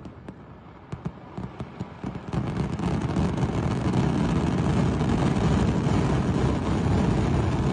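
A burning fireworks stockpile going off: scattered pops at first, then about two seconds in a dense, continuous barrage of rapid crackling bangs as the store ignites.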